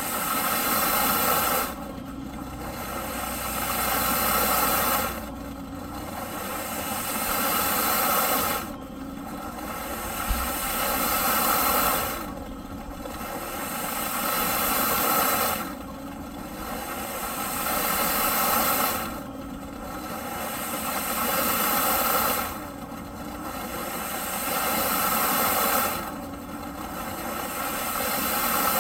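Eureka PowerSpeed vacuum cleaner running with a loud rushing hiss of air. The sound swells over about three seconds, then drops off suddenly, and repeats in a regular surge about every three and a half seconds.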